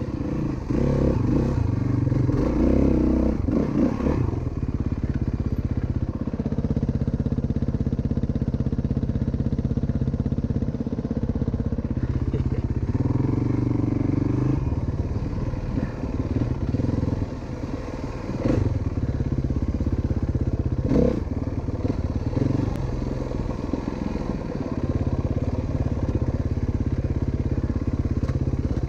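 Single-cylinder four-stroke dirt bike engine running under way, its revs rising and falling with throttle and gear changes. Two sharp knocks in the second half.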